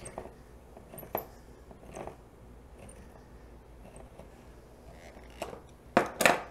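Handheld crank can opener cutting around the rim of a metal can, with faint clicks about once a second as the crank is turned. Near the end come a few loud clacks as the opener is released and set down on the countertop.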